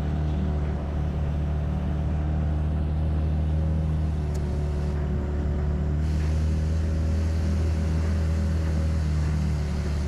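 Boat's outboard motor running at a steady, even pitch as the boat moves along; a higher hiss joins in about six seconds in.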